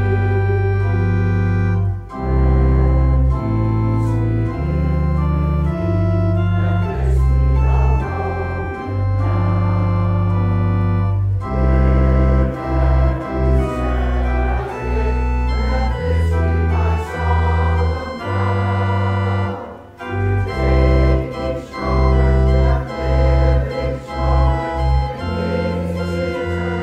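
Organ playing a postlude: sustained chords over a bass line that steps from note to note, with a brief pause about twenty seconds in.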